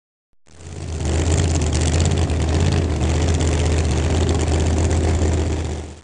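An engine running steadily, fading in over the first second and fading out near the end.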